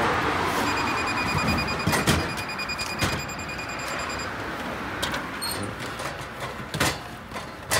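Drink vending machine sounding a steady electronic beep for about three and a half seconds, with several sharp knocks as drinks are bought and drop out.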